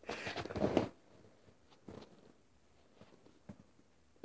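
A short rustle of movement in the first second, then near silence with a couple of faint taps.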